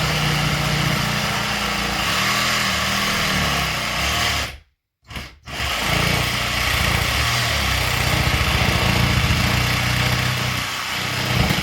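A handheld power saw running as it cuts into the wall, its pitch wavering under load. It stops briefly about five seconds in, then starts again.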